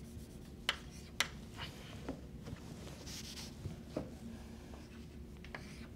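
Chalk writing on a blackboard: a couple of sharp taps as the chalk strikes the board about a second in, and a short scratchy chalk stroke around the middle.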